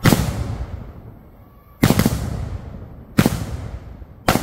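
Fireworks exploding: four loud, sharp bangs about one to two seconds apart. Each bang trails off in a rolling rumble that fades over a second or more.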